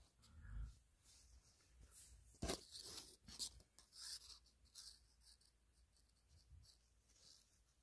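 Faint rustling and scraping of a braided cord toy fire hose being handled, with a soft thump about half a second in and a sharper scrape around two and a half seconds in.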